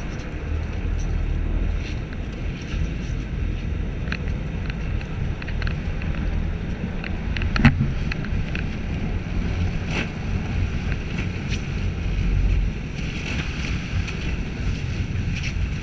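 Wind rushing over the microphone and a steady low rumble on a moving sportfishing boat, with sea water splashing along the hull. A sharp knock stands out about eight seconds in, among a few fainter clicks.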